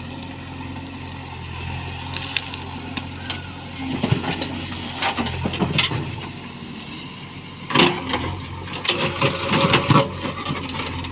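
JCB 3DX backhoe loader at work, its diesel engine running steadily. Loud clanks and crunches break in about four seconds in and again from about eight to ten seconds in.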